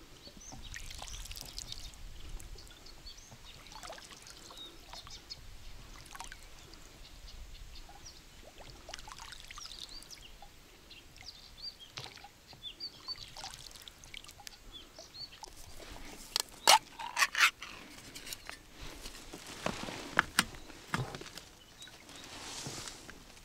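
Oars of an inflatable boat dipping and dripping water, with small birds chirping. A quick cluster of loud sharp knocks comes about two-thirds of the way through, and a few more follow shortly after.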